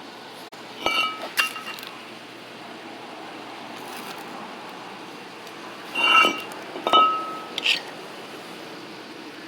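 Hard metal pieces clinking and knocking together, in two bursts of a few strikes each, each strike leaving a short ringing tone, over a steady background hum.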